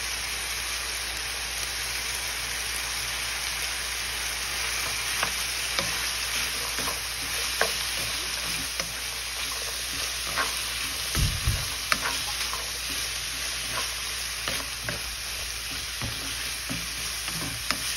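Diced chicken and carrots sizzling in a nonstick frying pan, stirred with a wooden spoon that ticks and scrapes against the pan now and then. A dull low thump comes about eleven seconds in.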